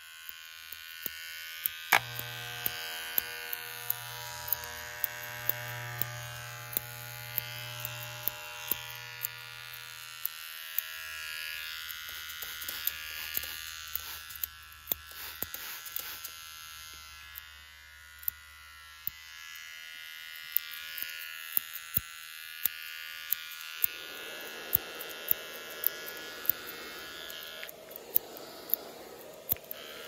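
Electric hair clippers buzzing steadily, with frequent sharp clicks over the buzz. The low pitch of the buzz drops about a third of the way through, and a rougher hiss joins in near the end.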